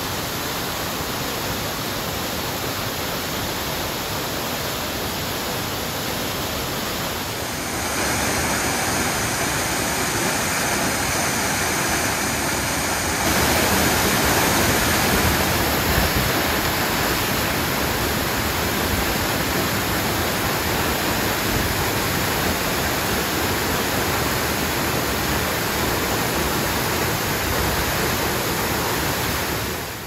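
Mountain waterfall pouring into a rocky plunge pool: a steady, even rush of falling water. It grows louder in two sudden steps, about seven and about thirteen seconds in.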